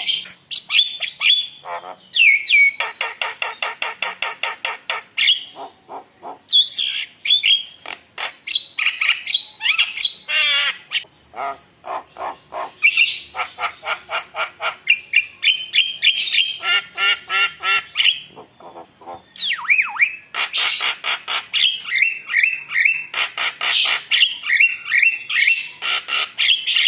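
Javan myna singing in full voice: rapid runs of harsh repeated notes and chatter alternating with whistled, squeaky phrases, in bursts separated by brief pauses.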